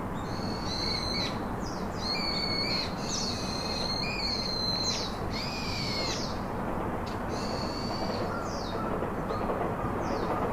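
Birds calling: a run of high, clear calls, each lasting about half a second to a second, for the first six seconds, then a few more after a short break. A steady rushing noise runs underneath.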